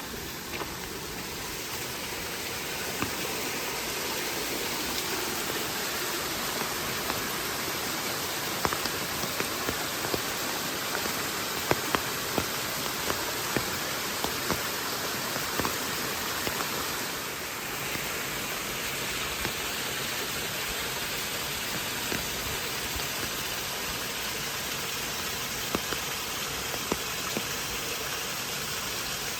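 Steady rain falling, with scattered sharp taps of drops hitting a nearby surface.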